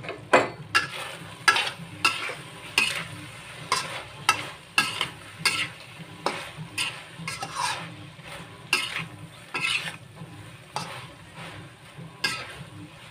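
A metal spatula scrapes and knocks against a steel wok as vegetables are stir-fried, with frying sizzle underneath. The strokes come in irregular quick succession, about two a second.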